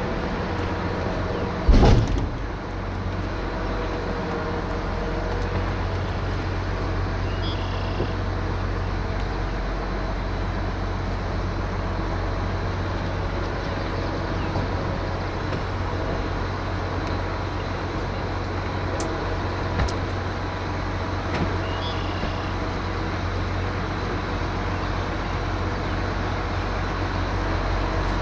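Engine running steadily with a low hum. One sharp, loud knock about two seconds in.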